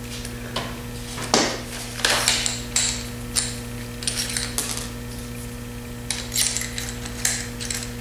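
Scattered light clicks and metallic taps as an aluminum angle bracket, a screw and a cordless drill are handled on wooden frame strips, over a steady low hum.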